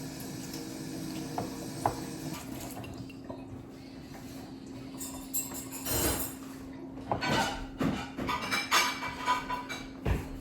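Kitchen dishes and utensils clinking and clattering, sparse at first and busier in the second half, over a steady low hum.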